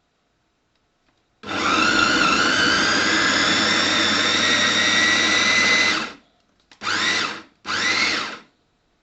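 Electric food chopper's motor running for about four and a half seconds with a steady whine, then pulsed twice in short bursts that spin up and wind down each time.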